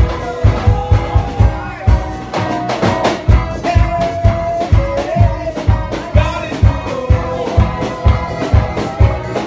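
Loud upbeat dance music with a steady, fast drum beat and a melody of long held notes.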